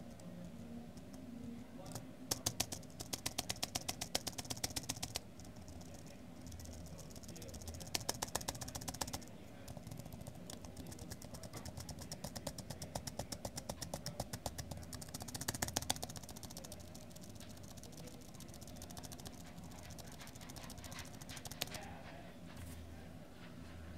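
Computer keyboard's spacebar tapped rapidly, in runs of quick clicks, each press deleting a seam of pixels from the image; a few single clicks follow near the end. A steady low hum runs underneath.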